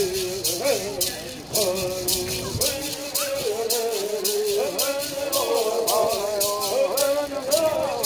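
Men singing a Bird Song together, the melody moving in steps, with gourd rattles shaken in a steady beat of about two to three strokes a second.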